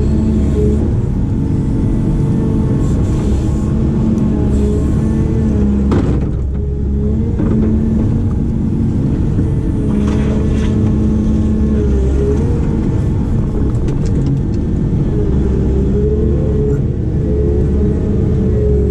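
Diesel engine and hydraulics of a heavy earthmoving machine working steadily, with tones that shift in pitch over a deep rumble and a few sharp knocks about six and ten seconds in.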